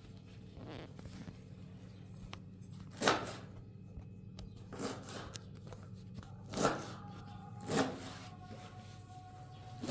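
A series of short, sharp rustling or tearing strokes, about five in all at uneven gaps of one to two seconds, over a steady low hum.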